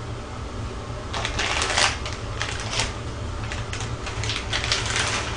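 Crinkly plastic ramen packets being handled and torn open, irregular crackling rustles in clusters starting about a second in.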